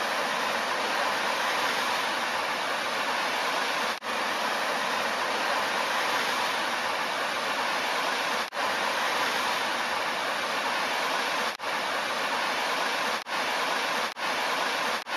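Steady rushing hiss of a jet fountain's spray falling back into the pond, broken by a few momentary gaps.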